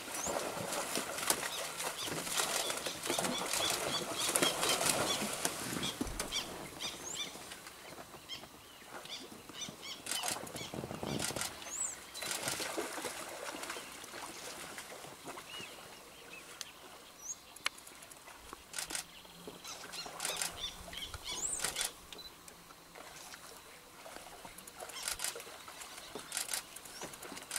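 Giant otters splashing in shallow water and scrambling on a sandy bank: a noisy splashing and rustling that comes and goes in spells, loudest in the first few seconds, with scattered short high chirps.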